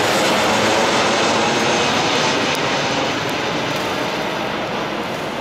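Boeing 737 twin-jet airliner flying low on its landing approach, just past overhead: a loud, even jet roar that slowly fades as it moves away.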